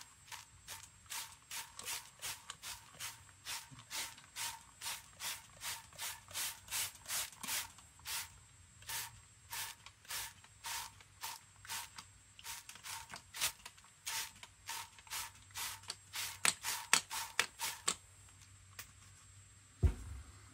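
Hand spray bottle squirting in quick repeated pumps, about two squirts a second, each a short hiss. The squirting stops near the end and is followed by one low thump.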